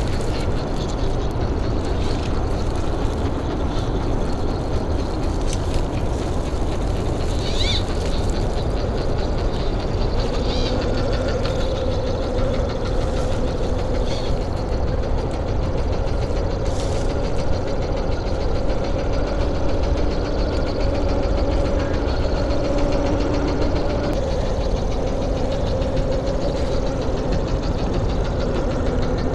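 Brushless-motor RC rock crawler (Axial SCX10 III) running its electric drivetrain at crawling speed: a steady motor and gear whine over a constant low rumble, the whine settling in from about a third of the way through. A bird chirps briefly once or twice early on.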